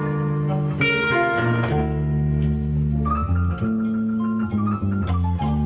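Live band playing an instrumental passage on guitars, bass and piano, with bass notes and chords changing every second or so. A held higher note sounds from about three to five seconds in.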